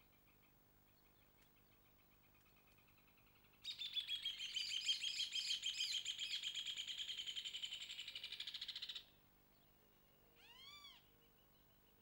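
Bird song: a loud, fast run of rapidly repeated notes lasting about five seconds, falling slightly in pitch, with two strands of notes overlapping. About a second after it stops comes a single short rising-and-falling call, over a faint distant trill.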